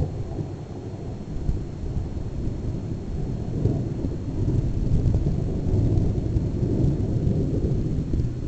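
Thunder from a passing thunderstorm: a long, low, rolling rumble that grows louder about halfway through.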